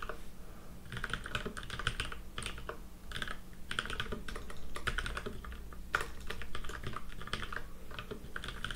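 Typing on a computer keyboard: quick runs of keystrokes with short pauses between them, as shell commands are entered.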